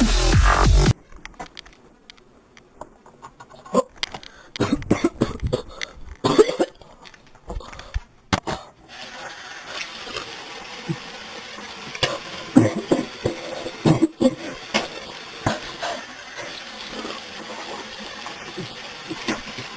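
Dubstep outro music cuts off about a second in. Then come scattered clicks, knocks and rustles of objects being handled, over low room noise.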